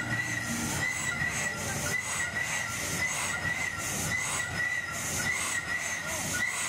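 Spinning fairground ride running: a steady high-pitched squeal with a hissing rush that comes and goes about every second, over a low rumble of machinery.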